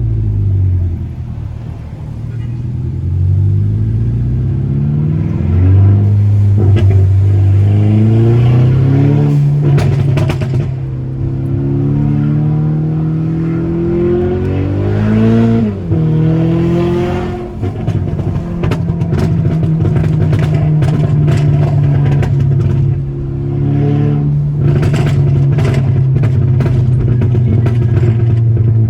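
Mk6 Volkswagen GTI's turbocharged 2.0-litre four-cylinder engine and exhaust, accelerating and shifting through the gears, with a sharp drop in revs about halfway through. Volleys of tuned exhaust pops and crackles on the overrun come from a Stratified tune, heard a few times and densest in the last few seconds.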